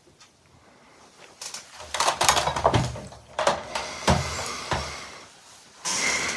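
Close handling noise: a run of clicks and knocks with rustling, loudest about two seconds in, and a short hiss near the end.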